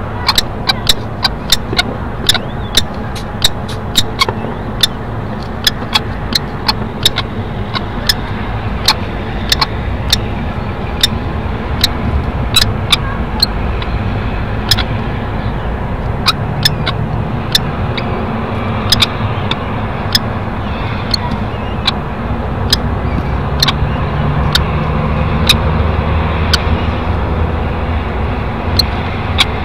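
Steady low rumble picked up by a nest-box microphone, swelling in the second half. Over it runs a string of sharp clicks, about two a second at first and sparser toward the end.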